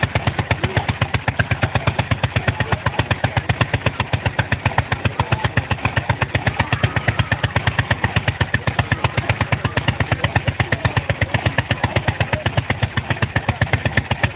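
Antique two-man chainsaw's engine running at low speed, with a steady, even beat of about six pulses a second.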